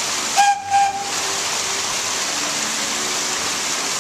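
Narrow-gauge locomotive's whistle sounding one short, high-pitched blast about half a second in, over a steady hiss.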